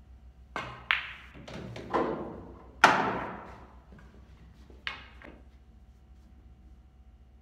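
Pool balls being played: the cue tip strikes the cue ball, followed by hard clicks and knocks of balls on balls and cushions. The loudest clack comes just before three seconds in and fades away slowly, with two lighter knocks about two seconds later.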